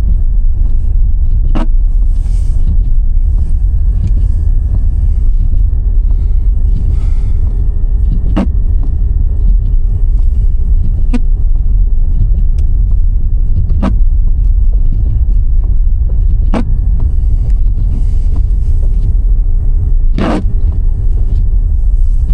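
Steady low rumble of a car driving, with engine and road noise heard inside the cabin, and a sharp click every few seconds.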